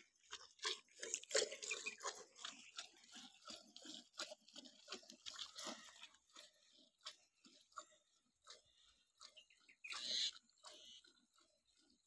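Cow being milked by hand: a quick, uneven run of faint squirts of milk into a steel pail, with one louder rush about ten seconds in.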